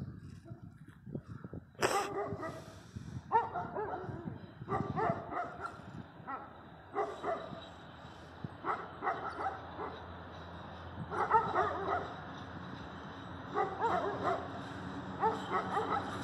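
A dog barking repeatedly in short bouts of several barks. A steady hum from the electric locomotives sets in about seven seconds in beneath it.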